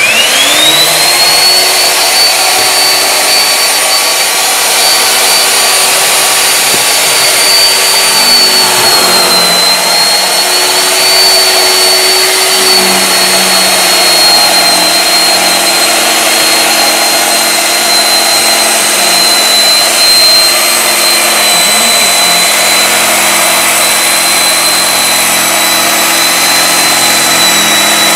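Electric motor of a RIDGID B-500 pipe bevelling machine spinning up with a quickly rising whine, then running loud and steady as its cutting head bevels the end of a steel pipe for welding. The whine dips slightly in pitch about nine seconds in and stays lower.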